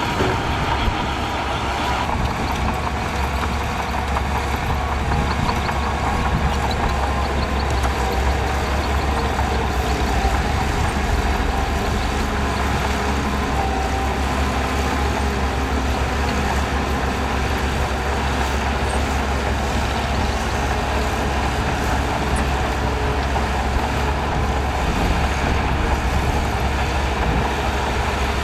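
Shantui DH17C2 bulldozer's diesel engine running steadily as it works, with a deep low hum.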